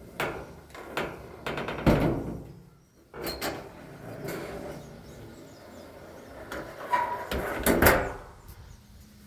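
Heavy metal door on a Yale 2000 series door closer being pushed open and swung shut, with a string of knocks and clunks; the loudest come about two seconds in and again near the end.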